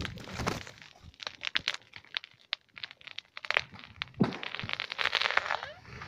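Footsteps through forest undergrowth: dry twigs and sticks cracking underfoot and leafy branches brushing past, in many short irregular snaps, with a denser stretch of rustling about four seconds in.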